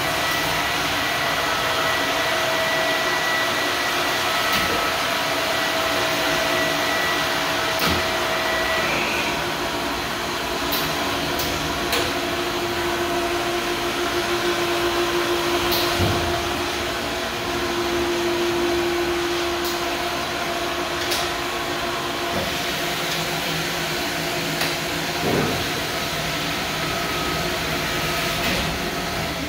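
Steady, loud din of car wash equipment running in the backroom: motors and pumps with several steady hums that come and go, and a few sharp clicks.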